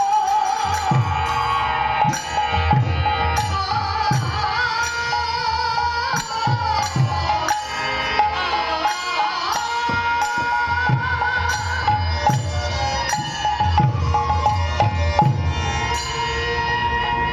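Kirtan music: a sustained, wavering melody line over regular hand-drum strokes whose bass slides down in pitch, with sharp cymbal-like strikes keeping time.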